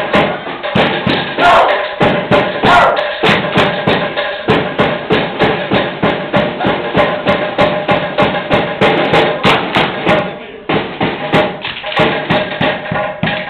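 Fast, even drumbeat accompanying a Samoan sasa dance, a quick run of sharp strikes that falters briefly about ten seconds in and picks up again.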